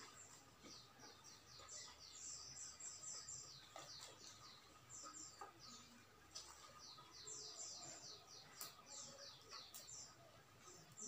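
A small bird chirping faintly in several quick runs of short, high chirps, each falling in pitch. A couple of faint clicks come near the end.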